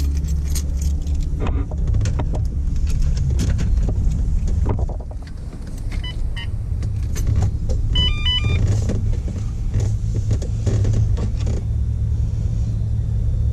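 Keys jangling and clicking in a Volkswagen Corrado's ignition as the car is switched on, over a steady low rumble. There are short, high electronic beeps about six seconds and again about eight seconds in.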